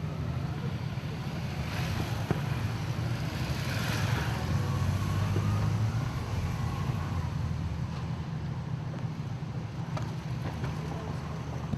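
Steady low rumble of a road vehicle's engine running, with a haze of outdoor street and traffic noise.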